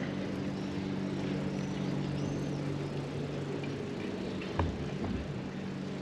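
Steady low engine hum, fading somewhat after the middle, with a single knock about four and a half seconds in.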